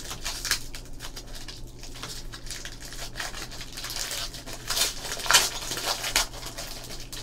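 Foil wrapper of a Triple Threads baseball card pack crinkling and tearing as it is pulled open by hand, with a run of louder crackles about five seconds in.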